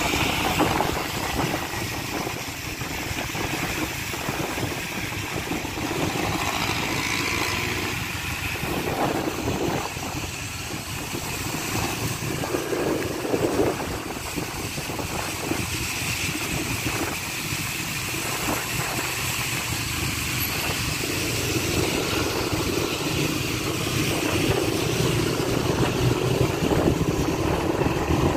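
Motorcycle engine running steadily on the move through city traffic, mixed with wind noise and the hiss of tyres on a rain-wet road.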